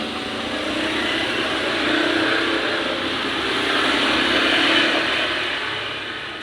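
A passing vehicle: steady engine and road noise that grows louder to a peak about four to five seconds in, then fades away.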